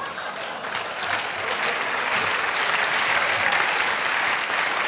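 Studio theatre audience applauding, the clapping swelling about a second in and holding strong.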